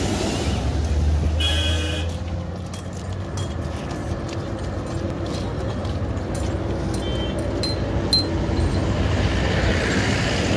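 Roadside traffic noise, a steady low engine rumble, with a vehicle horn sounding briefly about a second and a half in and a shorter high toot about seven seconds in.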